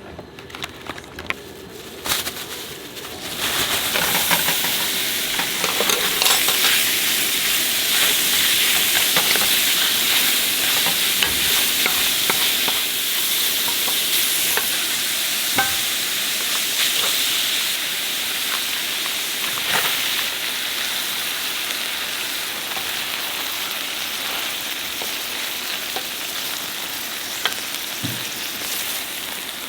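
Stir-fried webfoot octopus and pork belly sizzling on a griddle, stirred now and then with a spatula that clicks against it. The sizzle starts about three seconds in, with a loud hiss that slowly eases.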